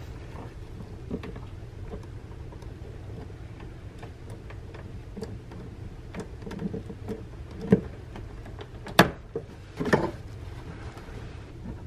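Scattered light clicks and taps of gloved hands working the plastic fuel line and fittings on top of a car's in-tank fuel pump, over a steady low hum. A few sharper clicks stand out in the second half.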